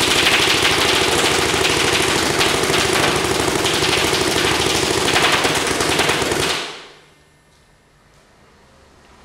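Evil Minion electronic paintball marker firing a rapid, continuous stream of shots in ramping mode, stopping abruptly about six and a half seconds in.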